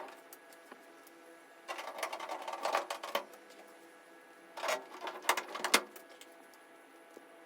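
Hands working on an opened portable clothes dryer during a belt repair: two bursts of rapid clicking and rattling, each about a second and a half long.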